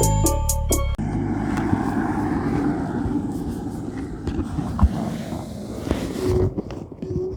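Motorcycle riding along a road, its engine and wind noise making a steady rumble. Intro music cuts off about a second in.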